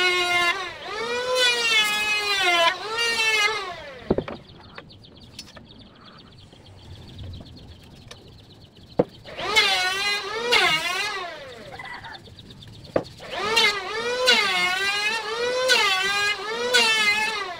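An engine revving in repeated bursts of about a second each, its pitch rising and falling. It pauses for a few seconds in the middle. A few sharp single taps come in between.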